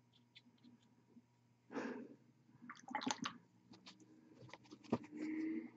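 Small handling noises at a hobby painting desk: a short swish about two seconds in, then light clicks and taps, and a knock near the end.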